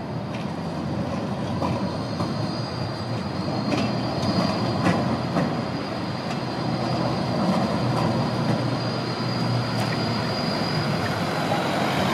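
Bombardier Flexity 2 low-floor tram passing close, its running noise growing louder over the first few seconds, with a steady high-pitched wheel squeal and scattered clicks from the wheels on the track.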